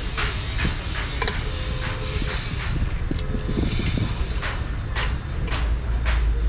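Sharp knocks repeating about twice a second over a steady low rumble.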